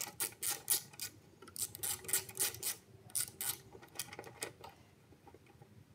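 Ratchet with a 10 mm socket clicking in quick runs of sharp ticks as it backs out a bolt on the lawn mower engine's cover. The clicking thins out and stops a little before the end.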